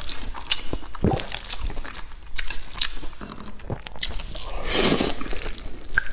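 Close-up mouth sounds of a person eating wide chili-oil noodles (youpo mian): wet chewing and lip smacks, with a longer slurp of noodles about five seconds in.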